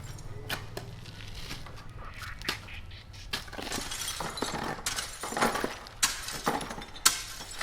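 Construction debris being cleared: a run of scrapes with sharp clinks, cracks and knocks of broken rubble, the loudest crack about seven seconds in.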